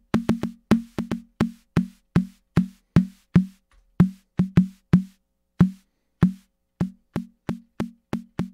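AKAI Rhythm Wolf's analog snare drum voice playing a sequenced pattern, about two to three hits a second. Each hit is a short pitched body with a burst of noise on top. The noise tails ring longer and brighter for a couple of seconds about a second in, then shorten again.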